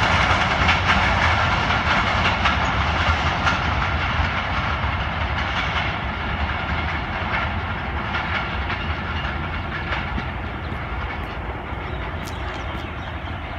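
Passenger train's coaches rolling away along the track, a steady rumble and clatter of wheels on rails that slowly fades as the train recedes.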